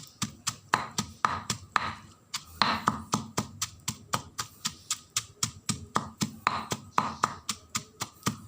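Pestle pounding curry paste in a mortar, with shrimp paste just added. It strikes in a steady rhythm of about three to four blows a second.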